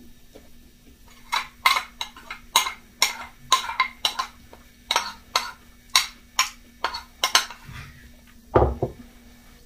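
A metal spoon clinking against a ceramic bowl while cereal and milk are scooped, about two sharp clinks a second. Near the end there is a single louder, low thud as the bowl is set down on the table.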